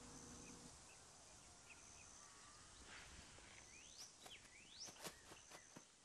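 Near silence: faint outdoor ambience with a few faint rising bird chirps about four seconds in, and soft steps in grass toward the end.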